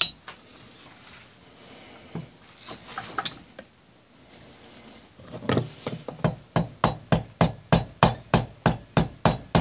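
Mallet tapping a Honda Rebel 250 cylinder block down over its pistons and ring clamps, to start the cylinders over the piston rings. After some scattered clicks of handling, a steady run of about a dozen light taps begins about halfway through, roughly three a second.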